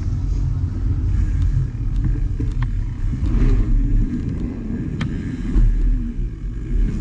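Bicycle tyres rumbling over wooden ramps and berms, picked up through a camera mounted on the bike, with a few sharp clicks and rattles from the bike.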